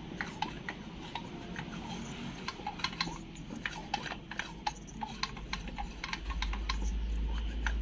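Light, irregular metallic clicks and clinks as the flywheel of a Robin-type 411 two-stroke brushcutter engine is turned by hand, checking the new ignition coil's clearance from the flywheel magnet. A steady low hum comes in about six seconds in.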